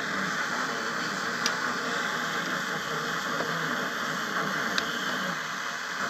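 Steady static hiss from passive speakers driven by a Chinese digital MP3/FM/Bluetooth audio module, with a couple of faint clicks as a USB flash drive is pushed into the port.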